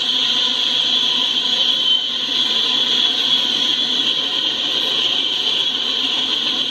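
Empty coal train rolling past on the rails, a steady, unbroken noise with a high continuous whine.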